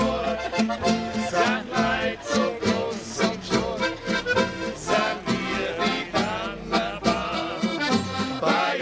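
Live folk music from a small band: a button accordion carries the tune over strummed acoustic guitar and double bass with a steady beat, and men sing along.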